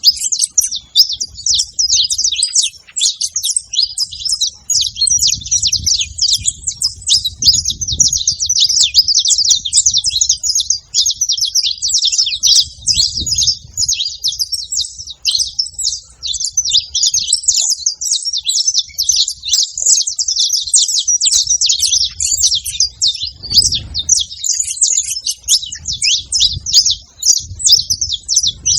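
Several saffron finches chirping and singing together in a dense, continuous stream of quick high twitters and trills.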